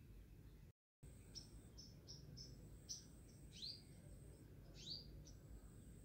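Faint background birdsong: short, high chirps that fall in pitch, about two a second, with a thin steady high tone that comes and goes.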